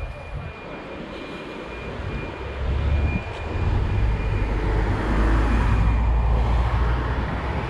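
Road traffic: a vehicle's engine rumble building about two seconds in and holding loud as it passes close by on the street.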